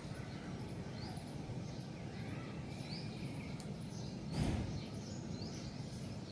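Small birds chirping, short rising notes about once a second, over a steady low rumble of outdoor noise. About four and a half seconds in there is one brief, louder burst of noise.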